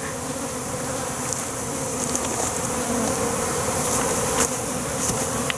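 Honey bees buzzing close up: a steady hum.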